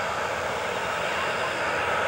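Boeing 737-800 airliner on final approach, its CFM56 turbofan jet engines giving a steady whine and rush at approach power.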